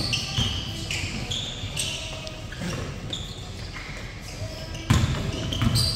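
Basketball game sounds: a basketball bouncing with heavy thumps, the loudest about five seconds in, and many short, high sneaker squeaks on the court.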